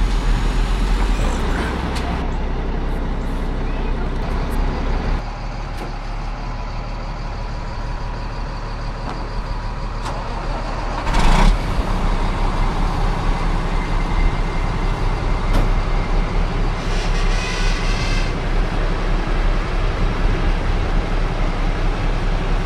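Heavy diesel engines running steadily: a stuck dump truck and a wheel loader working to tow it out of loose sand. There is a short loud burst of noise about eleven seconds in, and a brief hiss near the end.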